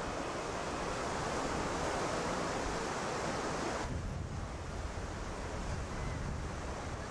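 Steady wash of surf with wind noise on the microphone. About four seconds in the sound changes abruptly, losing much of its hiss and turning duller.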